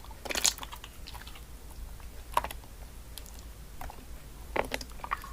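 Slime being handled, giving scattered small clicks and crackles, with a few louder ones about half a second, two and a half and four and a half seconds in.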